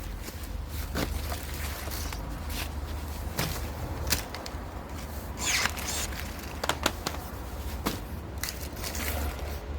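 Irregular clicks, taps and short scrapes of hands working with removed aluminium air-conditioner refrigerant pipe, over a steady low rumble.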